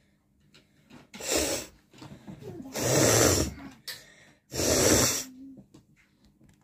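A person forcing air hard out through the nose three times, each a harsh, rasping blast of about half a second, with breathy sniffing between them.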